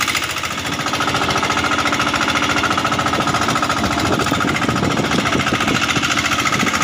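Small engine running steadily close by with a fast, even rattling beat.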